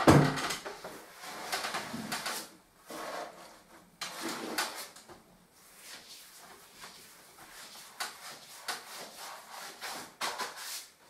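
Paper-hanging brush sweeping over pasted lining paper on a wall: a run of short brushing swishes and paper rustles, with a louder rustle right at the start.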